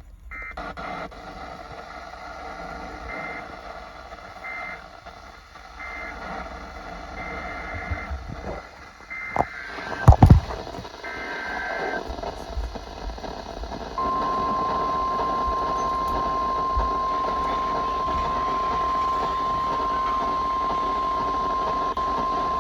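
Emergency alert broadcast tones. For the first twelve seconds there are short bursts alternating between two high pitches, typical of EAS/SAME data bursts, with a couple of loud thumps about ten seconds in. About fourteen seconds in, a steady single tone near 1 kHz starts and runs for about nine seconds: the NOAA Weather Radio warning alarm tone that comes before a new warning.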